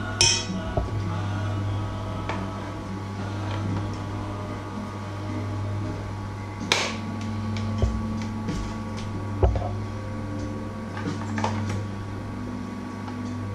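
Steady low hum, with a few sharp clicks and knocks as the beaters of a Bosch hand mixer are fitted into the mixer and handled over a steel mixing bowl; the mixer is not yet running.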